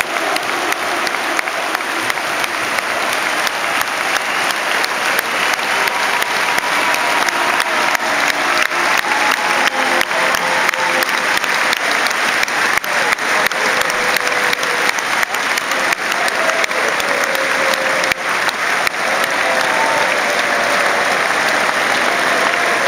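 Large stadium crowd applauding steadily, thousands of hands clapping in a dense, continuous patter.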